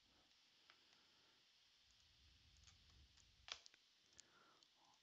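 Near silence, broken by a few faint, short computer mouse clicks; the clearest comes about three and a half seconds in.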